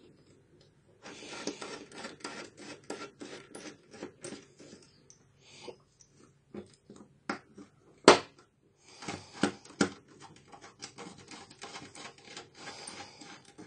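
A small hand tool scraping and rubbing against the plastic top case and metal frame of an HP Mini 110 netbook, with sharp plastic clicks. The loudest click comes about eight seconds in, and two more follow a second or so later.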